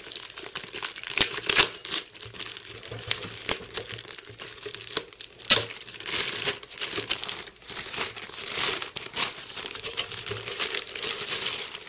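Clear plastic packaging bag crinkling and rustling in irregular crackles as hands pull it open and off a drive cage, with one louder, sharp snap about five and a half seconds in.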